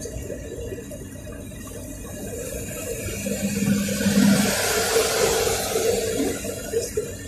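Road and wind noise inside a moving car, swelling to a loud rush about halfway through and fading again, as of another vehicle passing close by.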